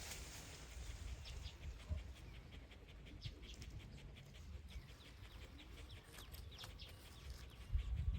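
Faint animal sounds: a run of many short, high ticks over a low rumble, with a louder low thump near the end.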